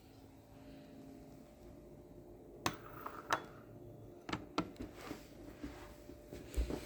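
A faint low hum, then a run of sharp clicks and clatters with a low thump near the end: the microwave door being opened and the plastic egg-poacher container being handled.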